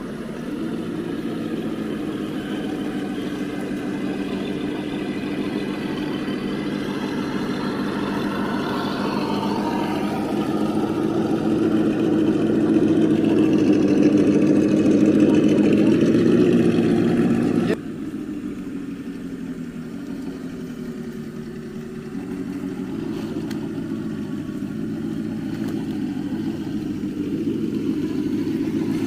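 Radio-controlled Traxxas TRX-4 and TRX-6 scale crawler trucks running slowly over rough dirt, their drivetrains giving a steady pitched running sound. The sound grows louder through the middle, then drops and changes abruptly about two-thirds of the way through as a different truck is heard.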